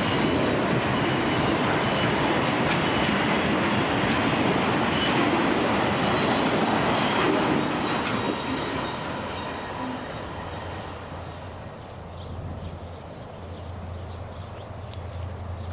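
Empty auto-rack freight cars rolling past, with steady wheel-and-rail rumble and faint high ringing tones. About eight seconds in, the sound drops away to a quieter, low steady rumble.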